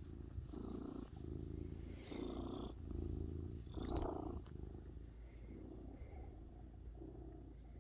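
Domestic cat purring close up while its head is stroked, a low hum rising and falling with each breath, growing fainter in the second half.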